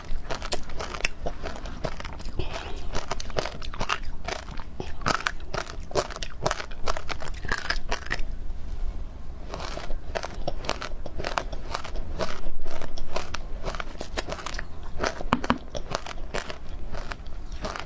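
Close-miked chewing of powdery frozen matcha ice: dense, crackly crunches of the ice breaking between the teeth, with a short lull about halfway through.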